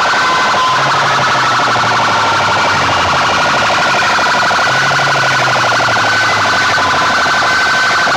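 Racks of horn loudspeakers blaring a harsh, distorted, siren-like electronic sound at full volume. Under it a low buzz comes in and drops out about every four seconds.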